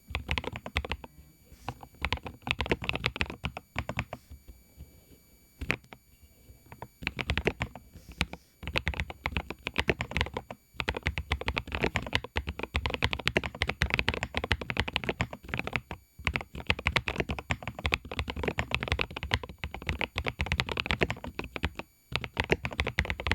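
Typing on a Lofree Dot Foundation mechanical keyboard with its custom 45 gf Gateron Baby Raccoon switches: a dense run of thocky keystrokes with the shrill highs damped. Typing stops for a second or two about four seconds in, with brief breaks now and then.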